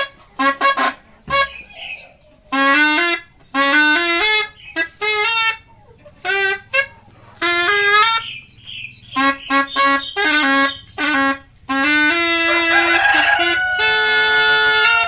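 Sundanese tarompet, a wooden double-reed shawm with a homemade reed, played loud: a quick run of short, detached notes stepping up and down, then longer held notes with a buzzy edge near the end.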